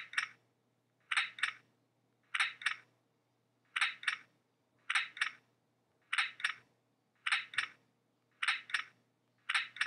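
A stapler sound-effect app on an iPod Touch, playing a stapler's double click-clack over and over: nine snaps, evenly spaced about 1.2 seconds apart.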